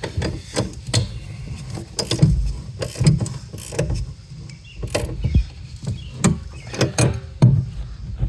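Irregular metallic clicks and knocks of a wrench and nut being worked onto a threaded bunk bolt, a few tenths of a second apart, with some louder knocks.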